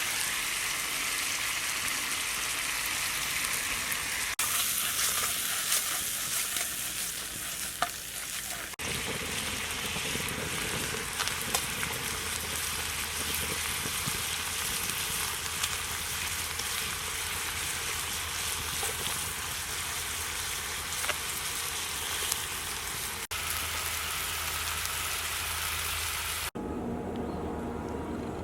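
Prawns sizzling as they fry in garlic butter in a pan, with a few clicks of stirring. Near the end the sizzle cuts off suddenly, leaving a quieter low hum.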